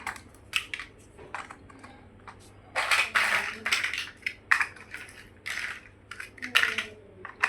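Plastic building-block pieces clicking and clattering as they are handled and pressed together: a string of sharp clicks with a few longer rattling clatters.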